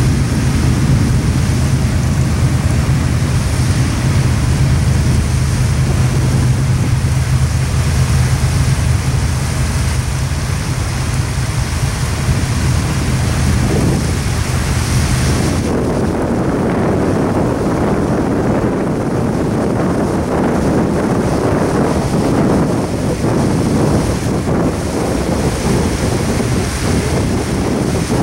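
Double-stack intermodal train rolling past on a bridge: a steady rumble of container cars and wheels on rail, with wind buffeting the microphone and the rush of a small creek waterfall. About halfway through, a low steady hum and the high hiss drop away and a rougher rumble takes over.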